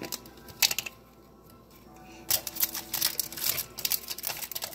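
Rapid crinkling and clicking handling noise: a short burst under a second in, then a longer, denser run from about halfway. It sounds like food packaging being handled while a sandwich is made.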